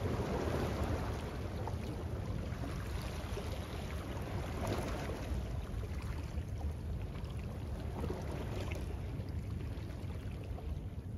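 Small waves washing against shoreline rocks, swelling near the start and again about five seconds in, over a steady low rumble of wind on the microphone.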